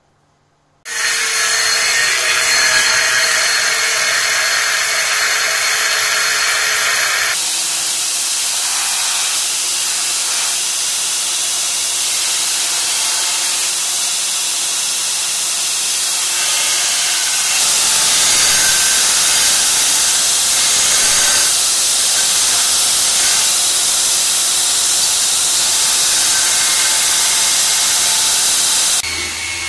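Belt grinder running with a steel knife blade pressed against its abrasive belt: a loud, steady grinding hiss of metal being ground. It starts abruptly about a second in, and its tone shifts twice.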